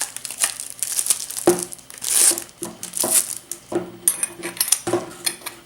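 Packaging wrap being crinkled and torn off a wrapped item by hand, in a run of short rustling bursts with a few light knocks from handling.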